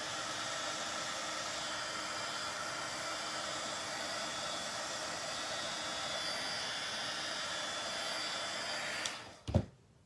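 Craft heat tool blowing hot air steadily over wet alcohol ink to dry it, switching off about nine seconds in. A single short knock follows just after.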